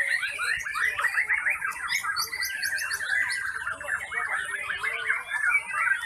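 Many caged songbirds singing at once: a dense, continuous chorus of rapid chirps, whistles and trills.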